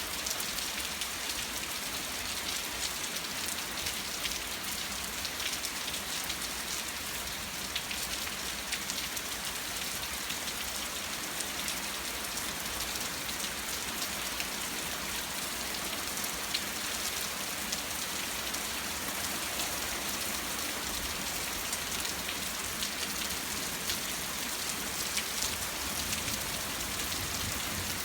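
Steady thunderstorm rain falling, with many scattered sharp drop ticks over an even hiss.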